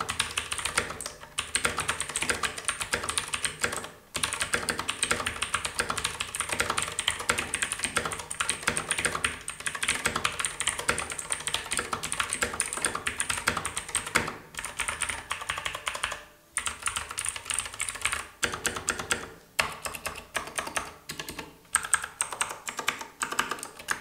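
Fast two-handed typing on an E-Dra EK387 Pro mechanical keyboard with Outemu blue switches and PBT double-shot keycaps: a dense, continuous stream of clicky keystrokes with a fairly solid sound. It is broken by a few short pauses, most of them in the second half.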